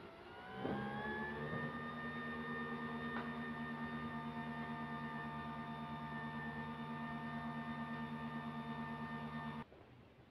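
Small electric motor of a coffee appliance spinning up with a rising whine, then running steadily with a fast pulsing hum, and cutting off suddenly near the end.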